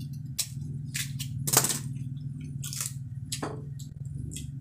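Crisp crunching and cracking of food being eaten and handled, about six short crunches, the loudest about a second and a half in. A steady low hum runs underneath.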